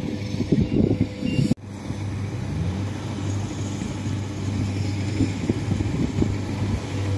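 Rice combine harvester's engine running, with gusty wind buffeting the microphone. After a sudden cut about a second and a half in, the engine hum is steadier and rises briefly in pitch soon after.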